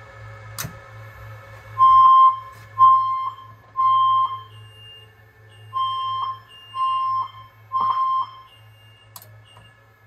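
Fire alarm system in alarm from a smoke detector, sounding the temporal-three evacuation tone: three half-second beeps about a second apart, a pause, then three more. Quieter, higher beeps alternate alongside. A click comes about half a second in.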